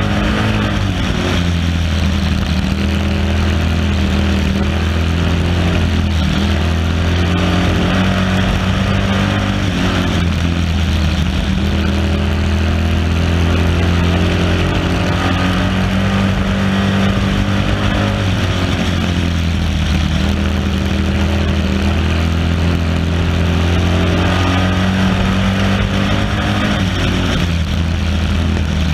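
Stock car's engine running hard at racing speed, heard from the car's own on-board camera, with a steady rush of wind and road noise. The engine note sags and climbs again a few times, as the driver lifts and gets back on the throttle.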